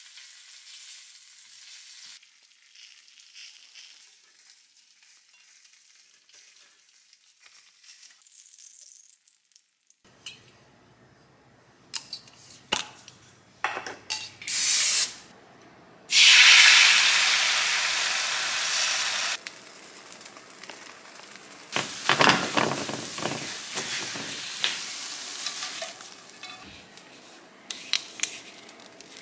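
Food frying in a nonstick pan: turkey bacon sizzles faintly, then utensils click and clink against the pan. About sixteen seconds in comes a sudden loud sizzle that fades and stops after about three seconds. Crackling and scraping follow as the eggs are stirred.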